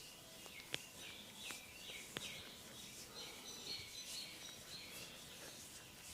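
Faint massage handling sounds with two sharp clicks in the first half, and small birds chirping in the background.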